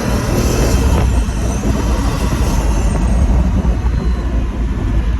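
Pagani Huayra Roadster's twin-turbo V12 running on the move: a heavy low rumble under a steady rush of air noise.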